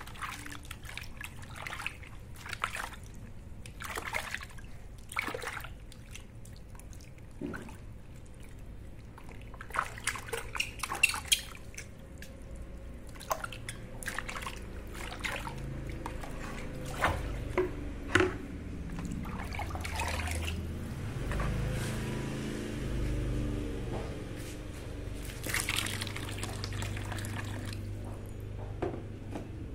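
Water splashing and trickling as a baby monkey is bathed, with many short sharp splashes and knocks, and a steadier low rush during the second half.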